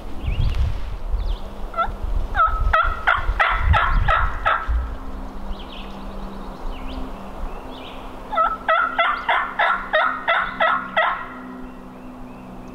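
Hen turkey yelping on a hunter's mouth call: two runs of rapid yelps, each about two seconds long and several seconds apart, with a few softer single notes before and between them.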